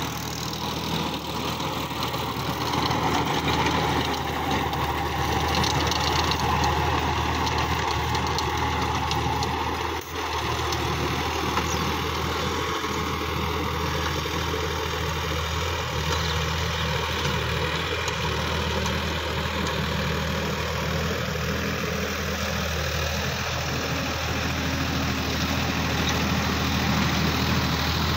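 Sonalika DI-50 RX tractor's diesel engine running steadily while it drives a rear-mounted rotary tiller through dry soil. The sound dips briefly about ten seconds in.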